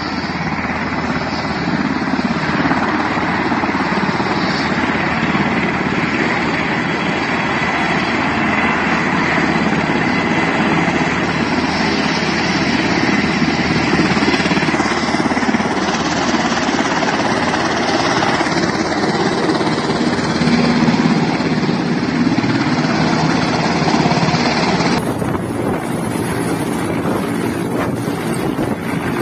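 Military helicopter turbines and main rotor running close by, a loud steady noise. Near the end it cuts to a second recording: an Mi-17 helicopter on the ground with its rotor turning.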